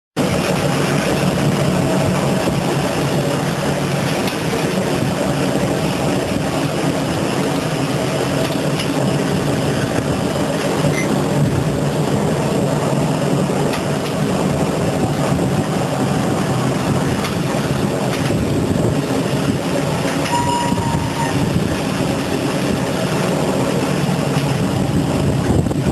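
Carpet-washing factory machinery running steadily: a constant machine drone with a low hum and rattle, and a brief high squeal about twenty seconds in.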